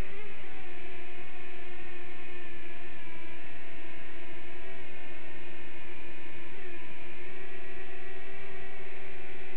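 DM007 quadcopter's motors and propellers whining steadily, heard from its onboard camera. The pitch wavers briefly near the start and shifts slightly up about seven seconds in as the throttle changes.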